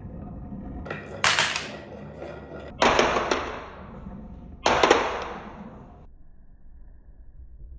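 Marbles on a wooden marble run: three sudden clattering hits about a second and a half apart, each trailing off over about a second as the marble rolls on.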